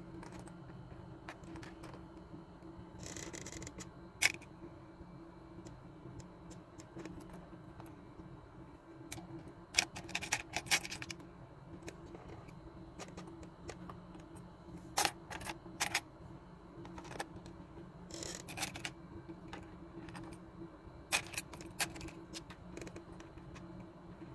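Battery-powered toy fishing game whirring with a steady motor hum, with intermittent plastic clicks and short clattering rattles from the pieces and rods.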